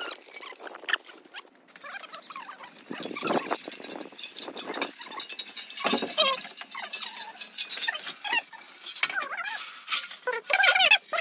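Scattered metallic clinks and knocks as a steel tractor bumper frame is handled and fitted, mixed with short high squeaks and chirps.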